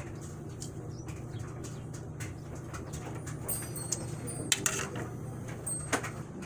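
Light clicks and knocks of kitchen handling, with a few sharper ticks in the second half, over a steady low hum.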